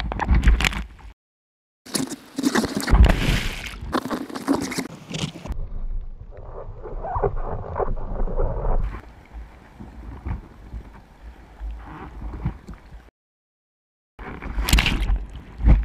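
Sea water rushing and splashing over a camera at the surface of the surf zone, with loud bursts of whitewater and a quieter stretch of muffled bubbling in the middle. The sound cuts out completely twice, for about a second each, about a second in and near the end.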